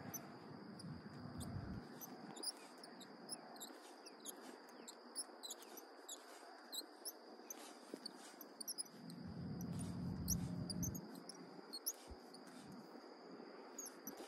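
Outdoor marsh ambience: small birds chirping in quick, irregular high notes over a steady thin high whine and a soft wash of water. Two low rumbles come and go, one about a second in and a louder one around ten seconds in.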